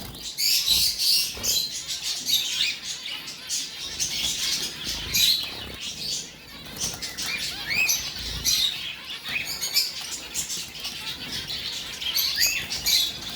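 Zebra finches calling: a busy run of short, high chirps from several birds, overlapping, with scattered sharp clicks among them.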